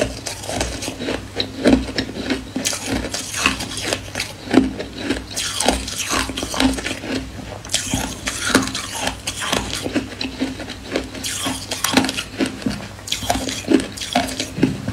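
Close-up crunching and chewing of white crushed ice, in irregular sharp crunches a few times a second, mixed with a metal spoon scraping and clinking in a stainless steel bowl.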